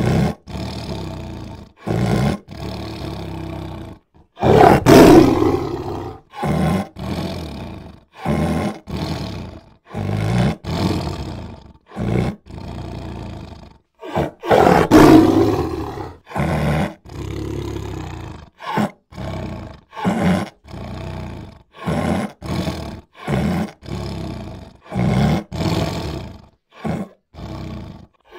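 Big cats roaring, a long string of short roar clips cut together, each breaking off abruptly into a moment of silence before the next. The loudest roars come about five and fifteen seconds in.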